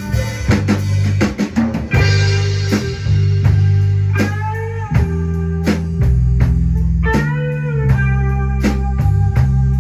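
Blues band playing: electric guitar with bent notes over bass and a drum kit.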